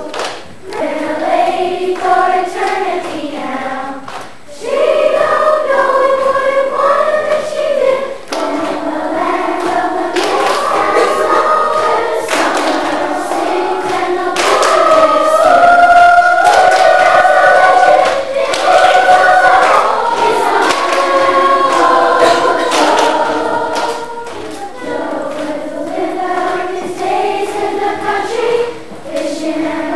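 A children's choir singing with long held notes, loudest about halfway through.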